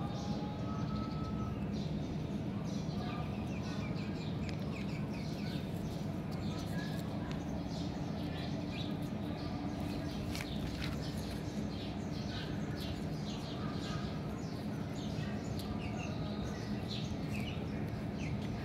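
Small birds chirping repeatedly in short high notes over a steady low hum.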